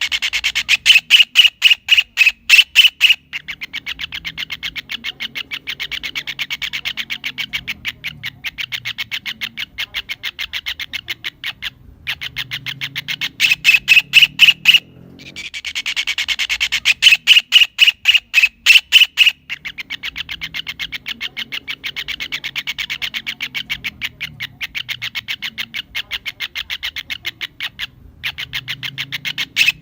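Kingfisher calling: loud, rapid trains of sharp, high notes alternate with longer, quieter stretches of fast chattering. Short breaks come about twice, and the same sequence repeats roughly every sixteen seconds.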